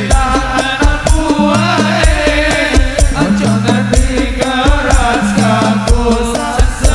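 Sholawat music from a hadrah ensemble: frame drums and bass drum beat a dense, even rhythm under deep bass notes and a melismatic sung melody.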